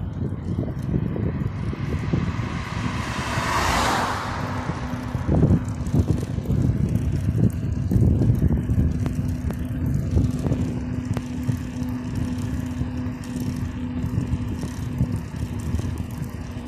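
Wind rumble on a phone's microphone as an Explorer Discovery Cross bicycle rolls along asphalt, with a car passing that rises to a swell about four seconds in and then drops away. A faint steady hum runs through the later part.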